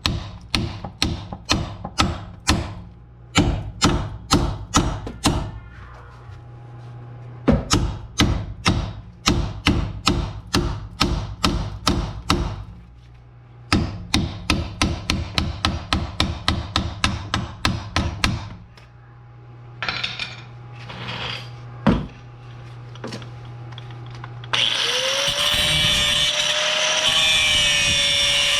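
Runs of sharp hammer blows, about three or four a second, on a rusty seized sway bar link, over a steady low hum. Near the end a grinder starts up and cuts steadily with a high whine, working the stuck stud off.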